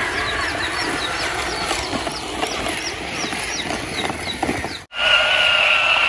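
Small electric motor and plastic gears of a toy RC excavator whirring, with a run of short high chirps over it. About five seconds in it cuts to a louder, steady motor whine from a toy RC tank.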